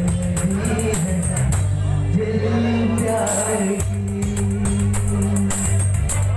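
A young man singing into a microphone, amplified through a PA system, in long held and sliding notes over music with a fast, jingling percussion beat.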